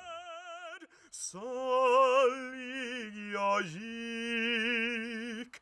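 A male opera singer singing unaccompanied, holding long notes with wide vibrato. A short note and a brief pause come first, then a long sustained phrase that dips in pitch partway through.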